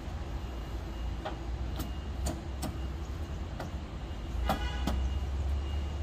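Scattered clicks and knocks from handling the air-conditioner outdoor unit's sheet-metal cover as it is hooked back on, with a ringing metallic clank about four and a half seconds in, over a steady low rumble.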